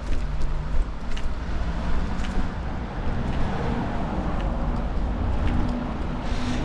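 Street ambience dominated by a motor vehicle's engine running close by, over a steady low traffic rumble, with light ticks about once a second.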